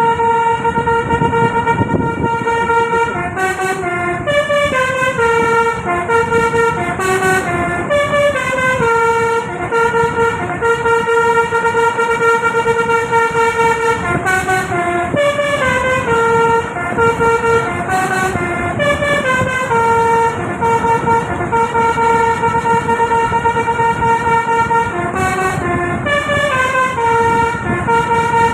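Tour bus's 'telolet basuri' musical air horn playing a tune nonstop: a held two-note chord broken every few seconds by quick runs of notes stepping down and back up, the phrase repeating over and over.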